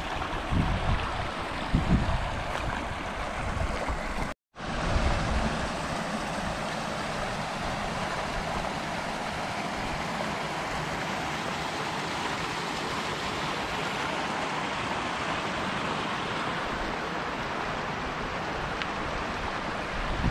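Steady rushing of flowing creek water, an even hiss. Low wind buffeting on the microphone in the first couple of seconds, and the sound drops out completely for an instant about four seconds in.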